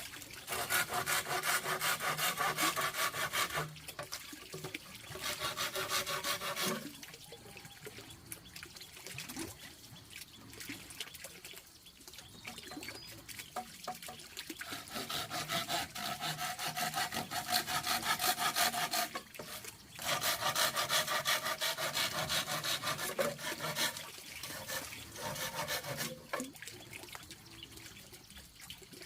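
Hand saw cutting wood in quick, even strokes, in several loud runs with quieter pauses between.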